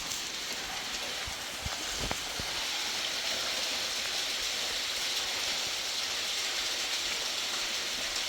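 Steady hiss of rushing water, with a few soft knocks in the first couple of seconds.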